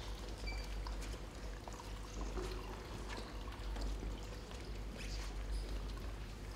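A large calligraphy brush being worked in a bucket of ink: liquid sloshing and dripping, with scattered small clicks over a steady low hum.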